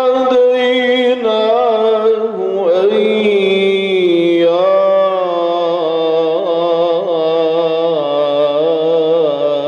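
A male Quran reciter chanting in the Iraqi style, drawing out long, ornamented vowels with wavering melodic turns and no pauses between words.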